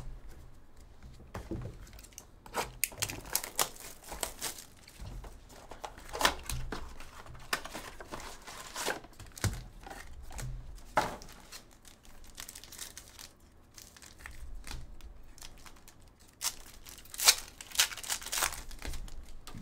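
A cardboard trading-card box being torn open, and a foil card pack ripped open and crinkled: irregular sharp tearing and crackling, loudest near the end.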